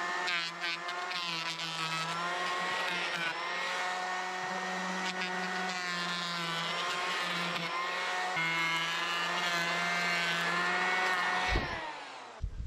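Cordless electric hand planer running, its cutter head shaving the face of a rough-milled cedar board. The motor whine dips and recovers in pitch as the blades bite, spinning up at the start and winding down near the end.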